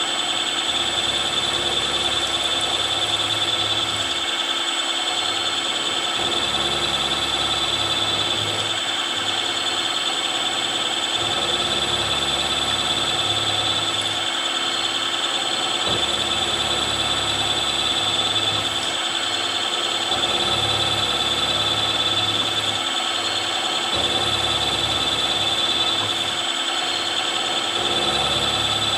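Milling machine running with a steady high whine while a 6 mm end mill cuts a deep slot in steel, with a low rumble that comes and goes every few seconds.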